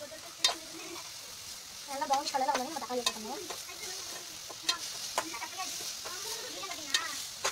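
Sliced onions sizzling as they fry in oil in a metal pot, stirred with a steel spoon that clicks against the pot's side several times. A brief wavering sound is louder about two seconds in.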